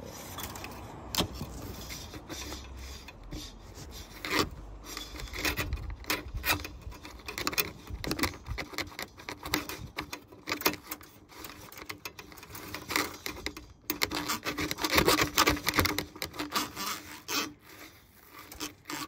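Thin flexible drain-cleaning cable being worked down a car's sunroof drain tube to clear a slow-draining drain: irregular scraping and rubbing with clicks and rattles as it is pushed and twisted, busiest a little past the middle.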